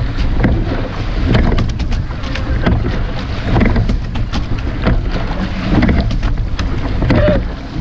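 Racing shell being rowed: steady wind rumble on the microphone over water rushing along the hull. A surge of water noise and knocks from the oarlocks and seats comes with each stroke, about every two seconds.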